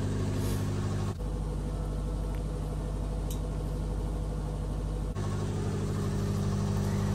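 Steady machinery hum in a motor yacht's engine room, a drone of several fixed low tones that changes abruptly twice, about a second in and about five seconds in.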